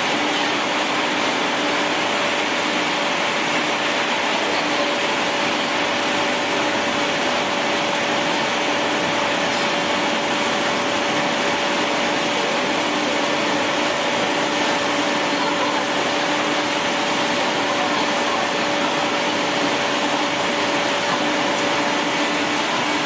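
Grass pellet mill running: a steady machine drone with a constant hum.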